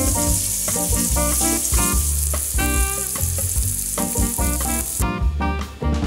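Diced peppers and onion sizzling in hot oil in a frying pan, under background music. The sizzling cuts off suddenly about five seconds in.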